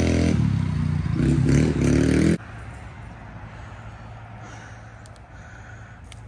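Dirt bike engine running at idle with a couple of brief revs, cut off abruptly a little over two seconds in. After that only a faint steady low hum with a few light clicks.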